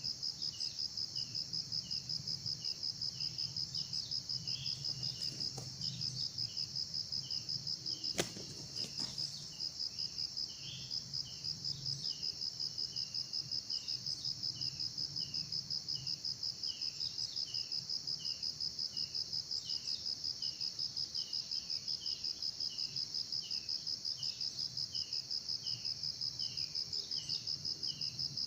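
Insects trilling in a steady, high, rapidly pulsing buzz, with short, lower, falling chirps repeated more than once a second. A single sharp click sounds about eight seconds in.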